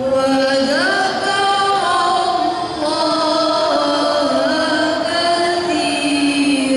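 A group of girls singing a maulid devotional song into microphones, holding long notes that step and slide between pitches.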